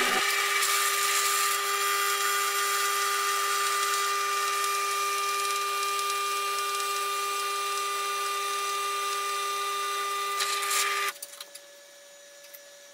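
Bench drill press running at a steady pitch while drilling a small steel part, with a steady hiss of the bit cutting over the motor whine. About eleven seconds in the sound drops sharply to a much quieter steady hum with a few light clicks.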